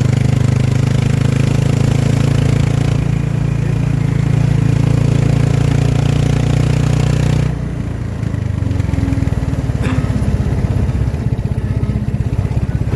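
Motorcycle engine of a tricycle running under way with a steady note. About seven and a half seconds in, the note drops and the engine settles to a lower, pulsing run, with a single click a couple of seconds later.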